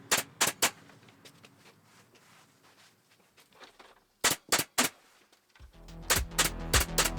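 Upholstery staple gun firing staples in two quick bursts of three sharp shots, one near the start and one about four seconds in, over background music whose steady beat comes in loudly near the end.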